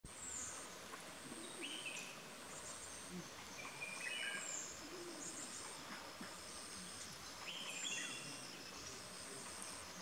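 Forest birds calling: a high, thin note repeated about once a second, with scattered short chirps and falling calls. Under them runs a faint, fast, steady pulsing tone.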